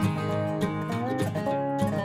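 Background music: a plucked-string tune with a regular pulse of notes.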